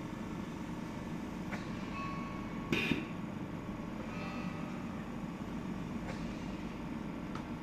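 Boaray 5000D ventilator running its start-up system self-test: a steady machine hum, a short hiss of air about three seconds in, and faint brief beeps around two and four seconds in.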